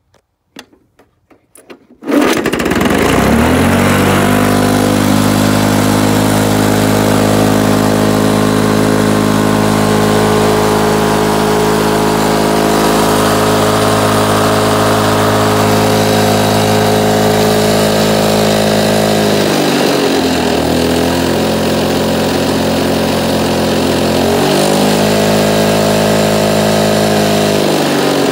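1973 Lawn-Boy mower's D-600 two-stroke engine, already warm from earlier running: a few faint clicks, then it starts at once about two seconds in and runs steadily. It drops to a lower speed about twenty seconds in, picks back up a few seconds later, and drops again near the end.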